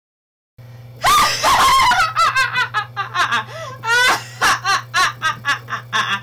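A person laughing hard: a long run of quick, loud bursts of laughter starting about a second in, over a steady low hum.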